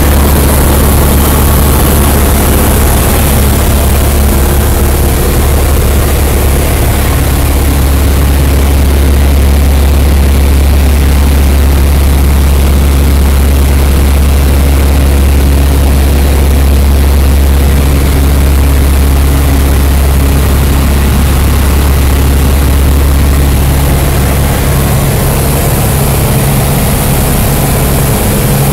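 Cessna 172's piston engine and propeller droning steadily, heard from inside the cabin in flight. The low drone weakens and the level drops slightly about 25 seconds in.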